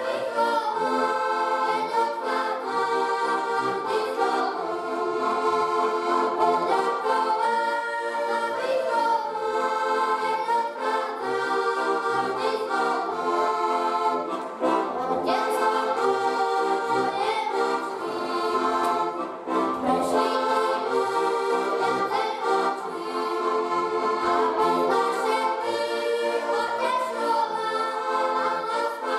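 Two diatonic button accordions (Slovak heligónkas) playing a folk tune together, with children's voices singing along.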